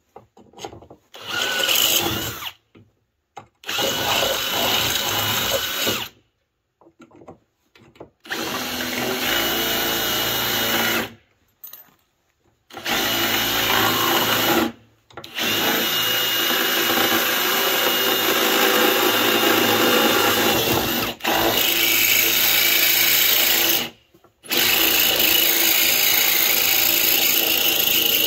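Cordless drill boring a hole, run in about seven bursts with short pauses between them; the later runs last several seconds each.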